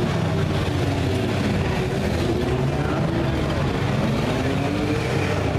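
Several four-cylinder demolition derby car engines running and revving, their pitch rising and falling as the cars push against each other.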